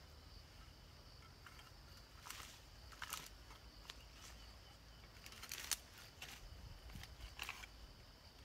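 Faint rustling and snapping of weeds and vine stems being cleared by hand, in irregular strokes with one sharper snap about two-thirds of the way in, over a steady high insect drone.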